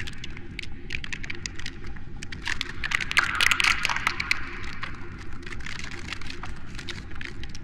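Weird trailer sound effect: dense, irregular crackling and clicking over a low rumbling bed, swelling about halfway through and thinning out near the end.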